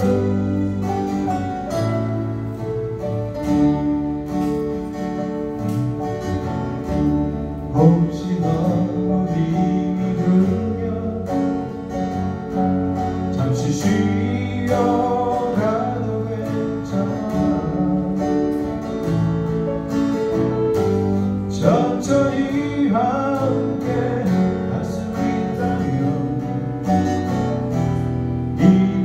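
Small live band playing a song: two acoustic guitars, electric bass and keyboard, with a melody line that wavers like a singing voice in places.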